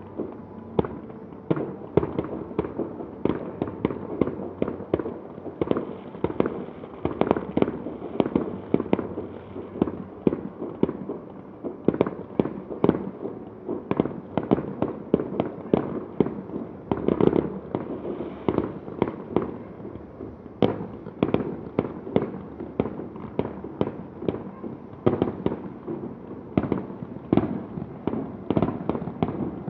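Fireworks display: a dense, unbroken run of bangs and crackles, several a second, with no let-up.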